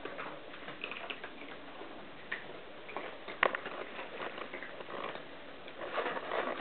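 Cats eating dry kibble from bowls: irregular small crunches and clicks, with one sharper click about three and a half seconds in, growing denser and louder near the end.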